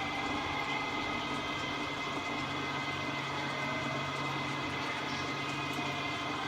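Okuma & Howa STM 2V vertical milling machine running steadily: a constant mechanical hum with several steady whining tones from its motor and gearing.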